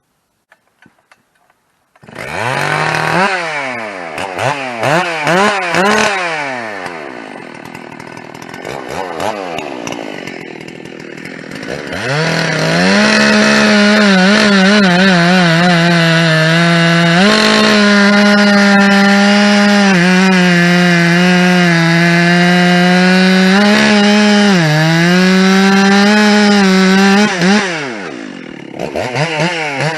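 Large two-stroke chainsaw, on its first tank after rebuilding or porting and running a bit rich, starts suddenly about two seconds in. It is blipped up and down a few times, then held at full throttle through a long cut in old oak. The pitch dips briefly under load, then it drops off throttle and revs once more near the end.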